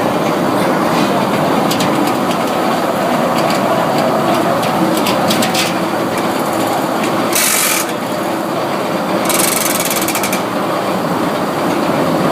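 Sawmill machinery running steadily with a dense clatter and rattle, broken by two short bursts of high hissing about seven and nine seconds in.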